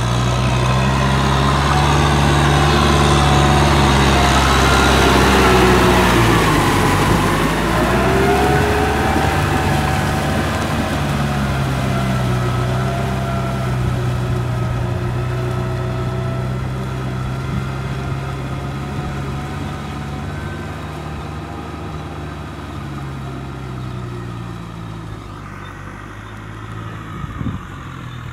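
Kubota M6040 SU tractor's diesel engine running under load as it cultivates mud in a paddy. It is loudest as it passes close by, drops in pitch, then grows steadily fainter as it moves away.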